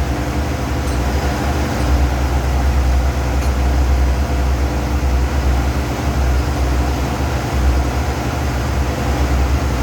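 Diesel engine running at a steady idle, a low, even drone that holds level throughout.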